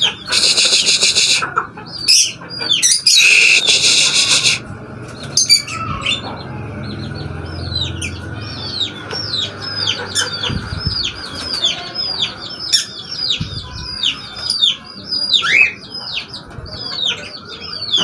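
Small caged parrots chirping over and over, in quick, sharp, falling chirps several a second. Near the start, two loud bursts of wing-flapping from a young aseel chicken.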